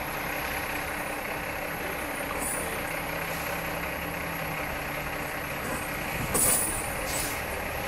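Steady engine noise from a stuck semi-truck and the car towing it on ice, with two short hisses near the end.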